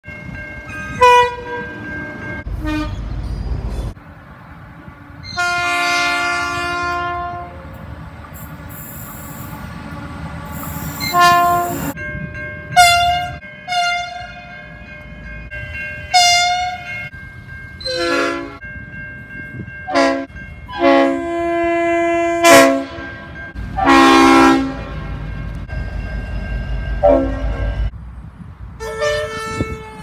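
Diesel locomotive horns sounding from several trains in turn, in a string of separate blasts, some short toots and some held for a second or two. Under them is the rumble of the trains running.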